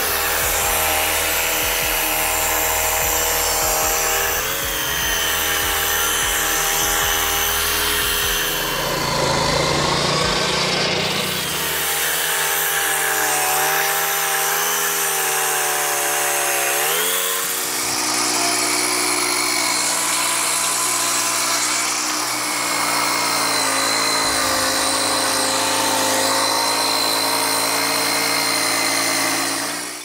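Lucas Mill swing-blade portable sawmill running: its engine drives the circular blade through a log. The engine note shifts with the load and rises sharply a little past halfway.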